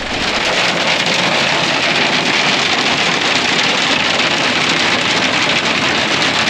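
Rain mixed with small hail pelting down hard: a loud, steady, dense hiss of countless small impacts.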